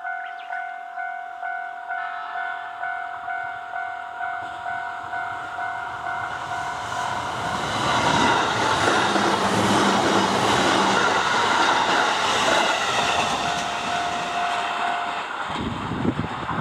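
A Japanese level-crossing warning bell rings in steady repeated dings while an E531-series electric train approaches, then passes close by with loud running noise and wheel clatter. The bell stops about a second before the end, followed by a few low thumps.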